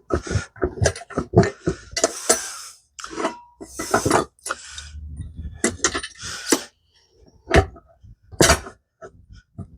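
Metal clanks and knocks from a manual tire changer being worked to break the beads on small mini bike tires, with a few short noisy rushes in among the knocks.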